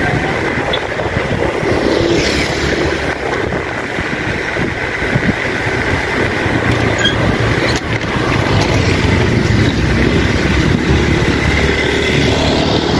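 Steady rushing noise of riding a bicycle along a paved street: wind on the microphone mixed with tyre and road noise.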